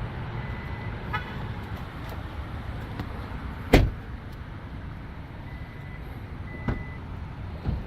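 A car driving, with a steady low road rumble. A sharp knock comes a little under four seconds in, and two softer knocks follow near the end.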